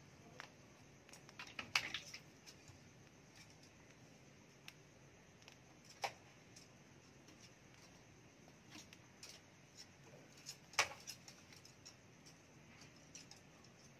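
Faint scattered clicks and taps over low room noise: a small cluster about two seconds in, and sharper single taps around six seconds and just before eleven seconds.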